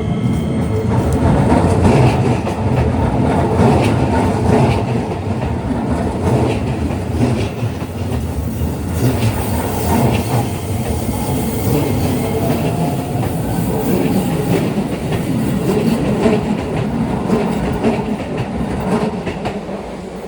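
Keisei 3000-series electric train running through a level crossing: a long, loud rumble with wheels clattering over the rail joints, dying away near the end.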